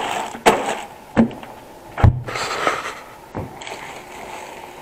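Frozen food packages being pushed back into a freezer: a series of knocks and bumps with rustling in between, and a heavier thump about two seconds in.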